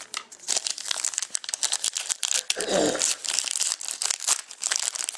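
Foil wrapper of a hockey card pack being torn open and crinkled by hand, a dense run of crackles.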